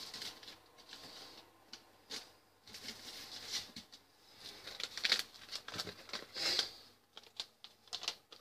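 Rummaging through seasoning packets in the kitchen: irregular rustling of paper and plastic packets with light knocks and clicks.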